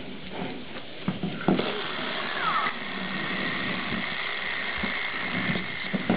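A wind-up toy's clockwork mechanism whirring steadily, starting about a second and a half in after a few light clicks and knocks.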